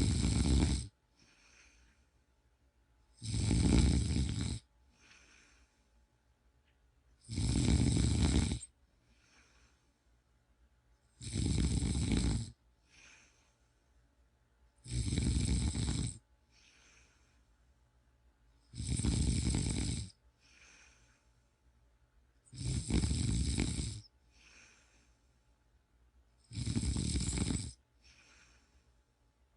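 Snoring in a steady rhythm: a loud snore roughly every four seconds, eight in all, each followed by a faint short breath out.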